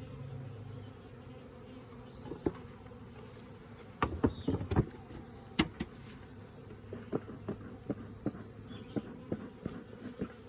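Honeybees buzzing steadily around a freshly installed hive. Over the buzzing come sharp knocks: one about two and a half seconds in, a cluster between four and five seconds, and lighter taps after that, as the hive covers are set in place.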